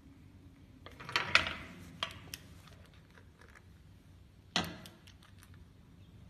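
Scattered clicks and knocks from a wooden-handled hand tool worked against a black rubber boot, a quick cluster about a second in and one louder knock a little past halfway.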